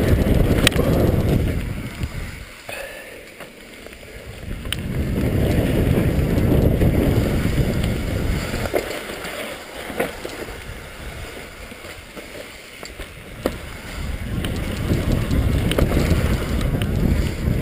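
Mountain bike riding fast down a dirt forest trail, heard from a bike-mounted action camera: wind rushing over the microphone and tyres rumbling, with sharp clicks and rattles from the bike. The rush eases off twice as the bike slows, then builds again.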